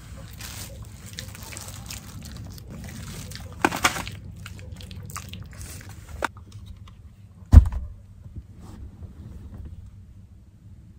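Rustling and crinkling of a disposable plastic glove and foil food tray being handled, with a louder crinkle about four seconds in, then one sharp, loud thump about two-thirds of the way through. A steady low hum runs underneath.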